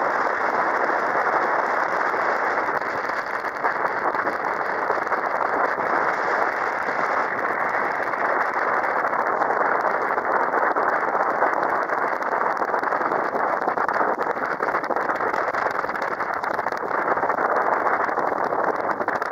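Steady rushing noise of an open boat under way on a river: wind over the microphone and water along the hull.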